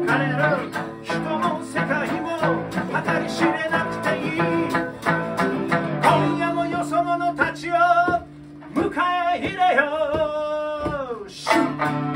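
Live acoustic band: two acoustic guitars strumming with a sanshin, and a man singing. The voice holds long, wavering notes in the second half.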